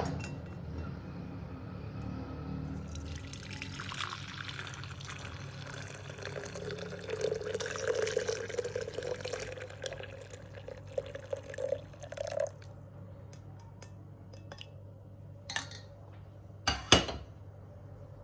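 Liquid being poured into a cup or jar, its pitch rising slightly as the vessel fills, stopping about twelve seconds in. Two sharp clinks follow near the end.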